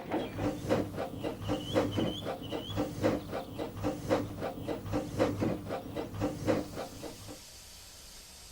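Steam locomotive chuffing at an even pace, about three exhaust beats a second, which stop about seven seconds in and leave a faint hiss.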